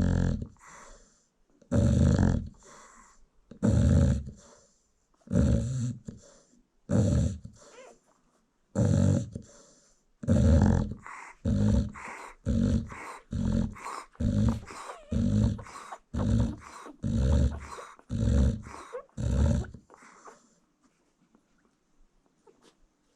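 American Bully dog snoring loudly in a steady rhythm of rumbling, snorting breaths. About halfway through the breaths come quicker, then they stop near the end.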